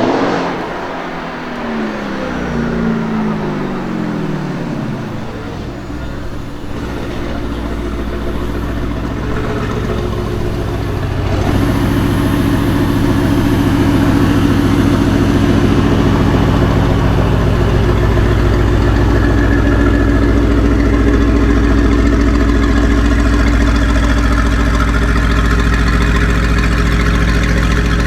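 Mercedes-AMG GT R's twin-turbo V8 through an aftermarket Fi exhaust: the revs fall from a loud flare over the first few seconds, then it settles to a steady idle. The idle grows louder about eleven seconds in and holds there.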